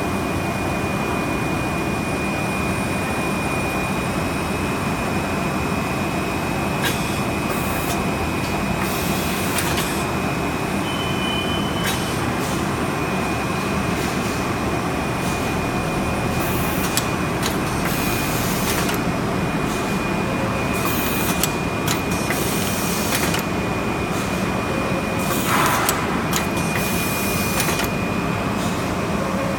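HM-ZD350K rigid box making machine running: a steady mechanical hum with a constant high whine and frequent irregular clicks and knocks.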